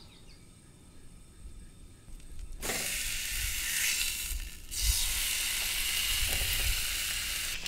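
Steak laid into a hot cast iron skillet and searing, a loud steady sizzle that starts suddenly about a third of the way in. The sizzle briefly dips and surges again a little past the middle as the second half of the steak goes in.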